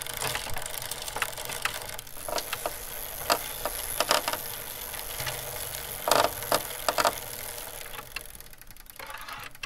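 Bicycle on the move: rapid mechanical ticking and rattling from the bike, with a handful of louder clicks in the middle, fading out near the end.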